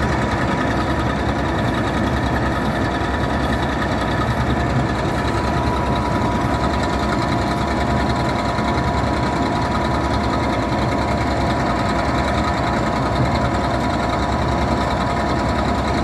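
Bizon ZO40 combine harvester running while standing still, its engine and machinery going at a steady, even speed with a constant whine over the engine note.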